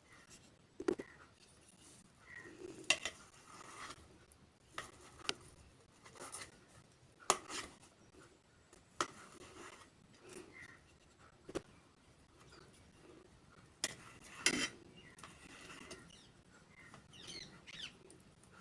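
Quiet, scattered clicks and knocks of kitchen utensils and dishes being handled, irregular and a second or so apart.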